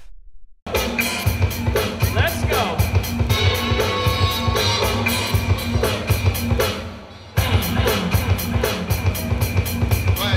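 DJ music for a breaking battle, with a heavy, steady drum beat. It starts about half a second in, drops out briefly around seven seconds in, and comes back at full level.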